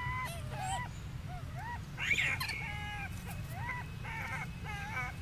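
A young rhesus macaque giving a rapid series of short, high-pitched coo calls, each rising and falling in pitch, about two a second, with one louder, harsher call about two seconds in.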